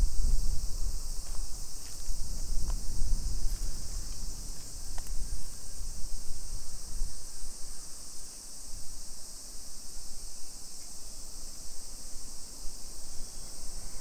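A chorus of summer cicadas, a steady high-pitched shrill drone. A low rumble sits under it in the first half and fades away.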